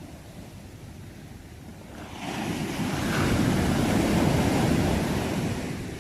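Ocean waves: a low rumble of surf, then a wave breaks about two seconds in, its wash swelling and fading away near the end.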